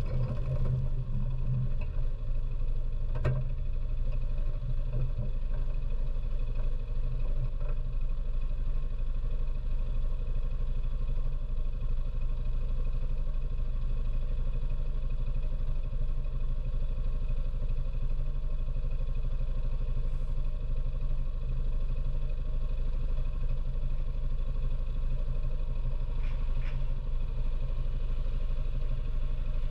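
ATV engine idling steadily, heard from a camera on the front-mounted magnetic sweeper. There is a single sharp knock about three seconds in.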